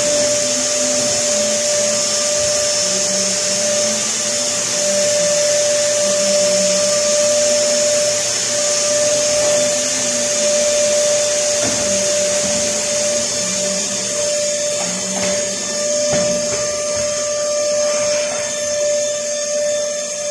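Canister vacuum cleaner running steadily, its motor holding one unchanging whine over a hiss of rushing air, as the hose nozzle is worked over a rug.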